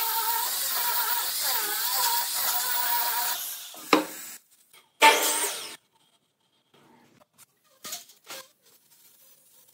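Handheld angle grinder with a sanding disc running against wood, its motor whine dipping in pitch as it is pressed in, then cut off about three and a half seconds in. A sharp knock follows, then a louder scraping clatter of wooden boards handled on the workbench, and a few faint taps.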